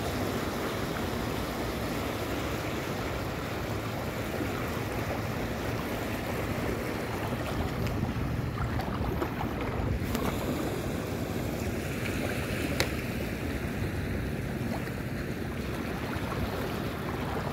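Small sea waves washing on the shore with wind rumbling on the microphone, a steady noise. A single sharp click about two-thirds of the way through.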